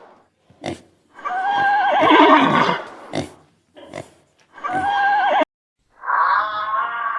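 Horse whinnying: a long quavering neigh about a second in that slides down in pitch, then a shorter neigh, with brief snorts between them. Near the end a different, steadier call begins.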